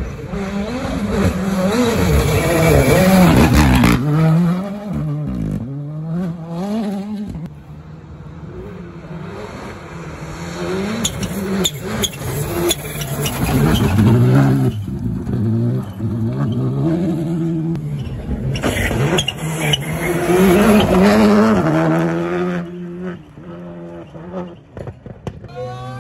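Rally cars passing flat out one after another, one of them a Škoda Fabia: engines revving hard and dropping back at each gear change, swelling as each car nears and fading as it goes by. A quick string of sharp cracks comes about halfway through.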